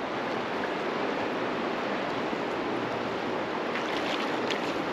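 Shallow river running steadily over a stony bed, an even rushing of moving water, with a few faint ticks near the end.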